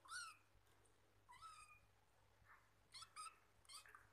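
Young kitten mewing: about five short, high-pitched mews, two of them close together near the end.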